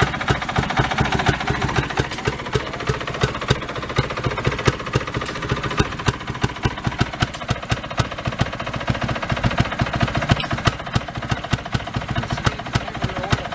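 Small two-stroke engine idling, with a rapid, even train of firing knocks. It is running on two-stroke oil mix and putting out smoke.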